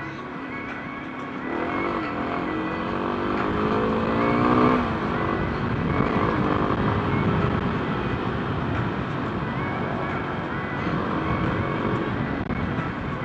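Car engine revving up under acceleration, its pitch rising for about three seconds before breaking off, followed by steady driving noise.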